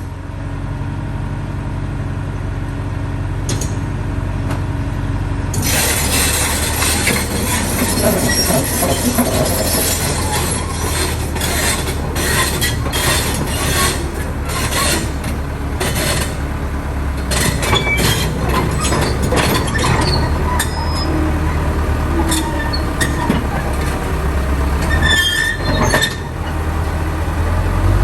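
Heavy tracked machine's diesel engine running steadily. About five seconds in, rapid metallic clanking and squealing from the steel tracks and running gear join it and go on with many knocks.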